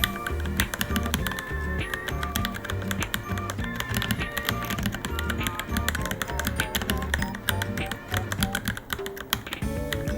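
Fast typing on a Varmilo Minilo mechanical keyboard, a steady stream of key clicks, over background music with a bass line.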